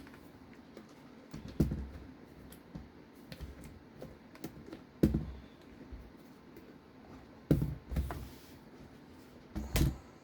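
Small screws, tools and plastic RC-car parts being handled while the rear shocks are screwed on: light clicks and taps, with four louder knocks spread through.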